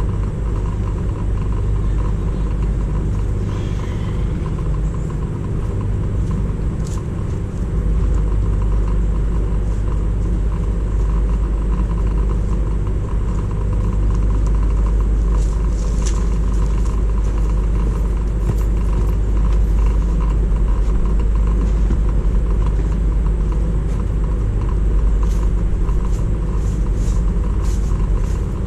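A motor vehicle running, a steady low rumble that grows a little heavier about eight seconds in, with a few faint clicks.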